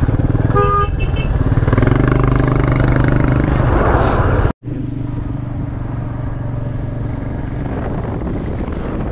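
Royal Enfield motorcycle engine running steadily in traffic, with another vehicle's horn tooting briefly about half a second in. The sound cuts out for an instant midway, then the engine carries on a little quieter.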